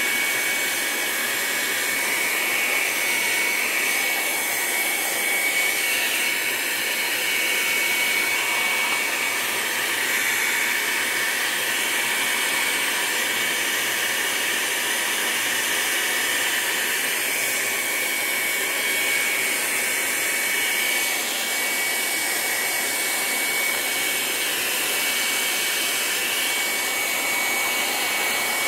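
Handheld heat gun blowing hot air steadily over wet watercolour paper to dry the paint, a constant rush of air with a thin high whine from its motor.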